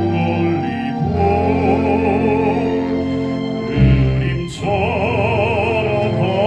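Baritone singing a Korean art song in full operatic voice with wide vibrato over orchestral accompaniment, with a short break between phrases about four and a half seconds in.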